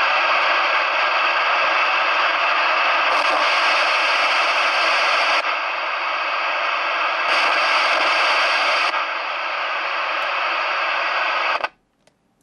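President Johnny CB radio's receiver hissing at full volume with the squelch off and no antenna: its own noise, loud and steady, which marks it as a 'total noise-box' (szumofon), a radio of poor class. Twice, for a second or two, the hiss takes on a brighter edge. It cuts off suddenly near the end as the radio is switched off.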